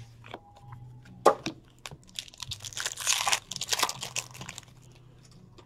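Wrapper of a hockey card pack being torn open and crinkled in the hands: a couple of sharp clicks in the first second or so, then a dense spell of crinkling and tearing in the middle, over a low steady hum.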